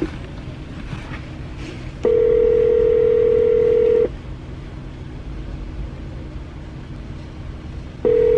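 Telephone ringback tone over a phone's speaker: one steady two-second ring about two seconds in, then about four seconds of gap before the next ring starts near the end. The dialed line is ringing and has not yet been answered.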